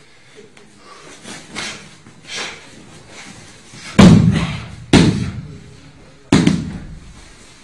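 Three loud slaps and thuds of a body and arm hitting the judo mat as a man is thrown and breaks his fall: the first about four seconds in, the next a second later, the last near the end.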